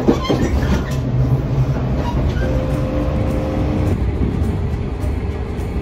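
Passenger train running, heard from inside the carriage: a steady low rumble, with a pair of steady tones for a second or so around the middle.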